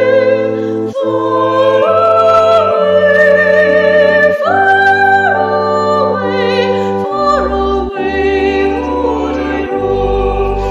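Classical vocal music: singing with vibrato over sustained accompanying chords and a low bass line, the chords changing every second or two.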